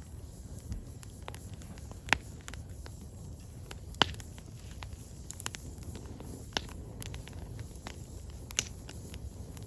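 Burning firewood crackling: irregular sharp pops and snaps over a steady low rumble of the flames, with the loudest pops about two, four and eight and a half seconds in.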